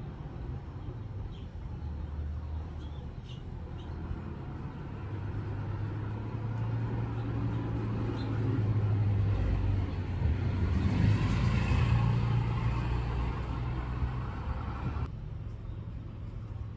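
A motor vehicle's engine running nearby, growing louder to a peak past the middle, then cutting off sharply near the end.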